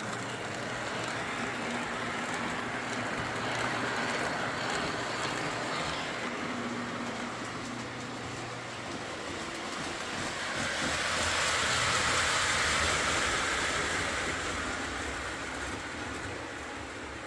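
Postwar Lionel O gauge locomotive with a Pullmor motor running around a three-rail track: a steady rolling, whirring rumble that grows louder about two-thirds of the way through as the train passes close, then eases off.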